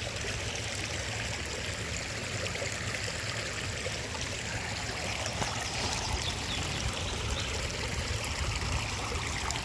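Water of a small waterfall flowing steadily, a constant rush without breaks.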